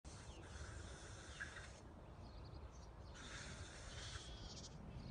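Faint outdoor ambience: a low rumble of wind on the microphone with a soft, uneven hiss, and no clear animal call.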